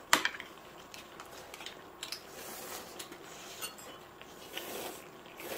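Table clatter of metal chopsticks and a metal ladle against a stainless steel serving tray and plates: one sharp clink just after the start, then scattered light clicks.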